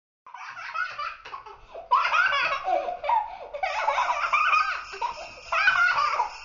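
Young child laughing and giggling in a string of rising and falling peals.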